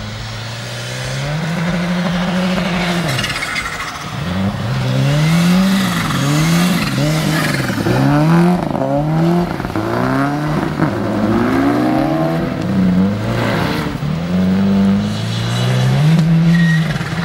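A turbocharged Subaru Impreza rally car and a Ford Focus RS racing on snow. The engines hold high revs for the first few seconds, then rev up and drop again about once a second through the turns, and hold high revs again near the end.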